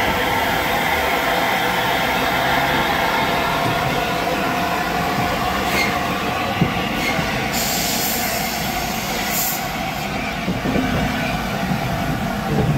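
Train running past close by on the line: a steady noise of wheels and carriages with a steady ringing tone throughout, and a hiss in the middle.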